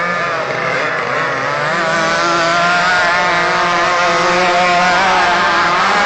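Several radio-controlled racing powerboats running flat out on two-stroke petrol engines. Their high buzzing whines overlap and waver in pitch as the boats pass, growing louder about two seconds in.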